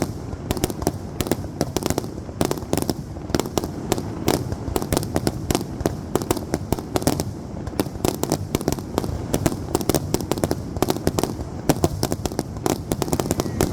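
Aerial fireworks going off in rapid succession: a dense, unbroken run of sharp bangs and cracks, several a second, over a steady low rumble.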